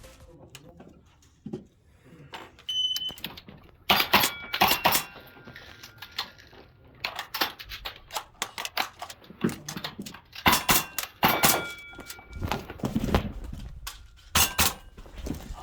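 Airsoft guns firing sharp cracks in quick clusters, with several strings of shots, and some hits followed by a brief metallic ring from the targets.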